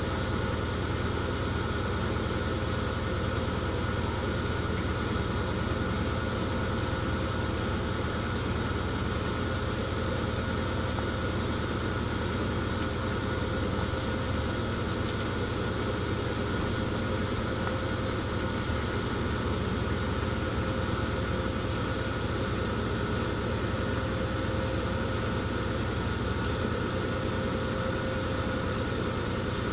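A machine running steadily, shaking a plastic tub of sand: an even, unbroken motor hum with a low drone and a faint rattle of vibration.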